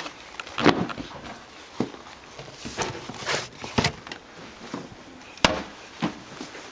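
Irregular knocks, scuffs and footsteps of someone handling shoes at a wooden shoe cupboard and stepping about on the entrance floor, with one sharp click after about five seconds.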